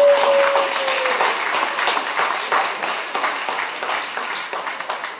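Audience applause from a large crowd of parents after a children's choir song, dense clapping that tapers off toward the end. A short held tone that sags slightly in pitch sounds over it in the first second.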